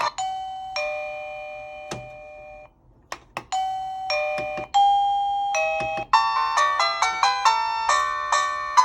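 Sanwa Supply wireless call chime stepping through its preset melodies: a few two-note ding-dong chimes, each fading out, with sharp clicks between them, then a quick multi-note chime tune from about six seconds in.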